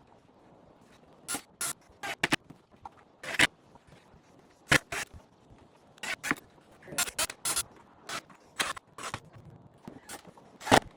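Irregular sharp knocks and clacks of wood being handled and worked, some coming in quick pairs, about sixteen over the stretch.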